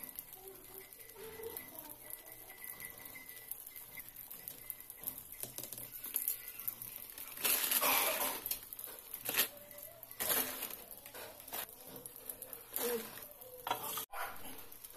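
Egg omelette frying in a nonstick pan with a faint crackling sizzle, broken by rustling, crackling bursts: a loud one about halfway and a few shorter ones later.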